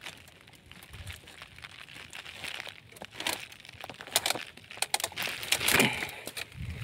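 Dry twigs, grass and leaves rustling and crackling as a hand pushes through dense brush, with irregular snaps that grow busier and louder about five to six seconds in.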